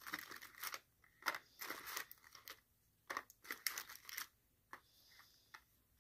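Folding knife cutting and tearing open a cardboard advent-calendar door, with cardboard crinkling and scraping in short irregular strokes that die down near the end.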